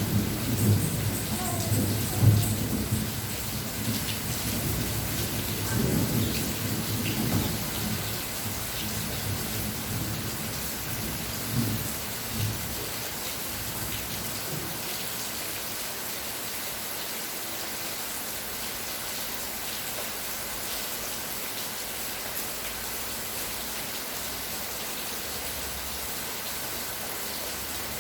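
Steady rain hissing down, with low rumbles of thunder that fade out about halfway through, leaving only the even rain.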